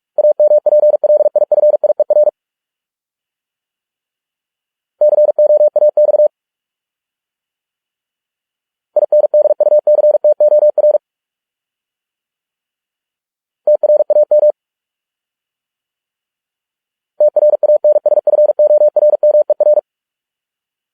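Morse code sent as a single steady beep tone at 45 words per minute: five words, each a fast run of dots and dashes lasting about one to two and a half seconds, with a few seconds of silence between them.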